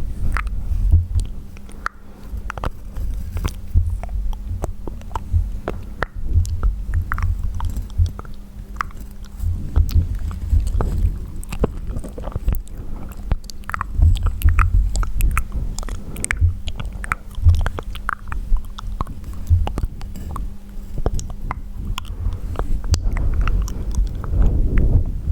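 Close-miked wet mouth sounds: a steady stream of tongue clicks, lip smacks and squelches over a low rumble, with no talking.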